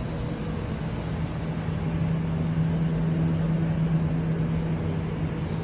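Steady low mechanical hum with a constant low drone, a little louder in the middle.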